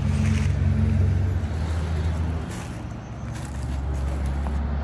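A motor vehicle's engine running with a low, steady hum, under outdoor noise.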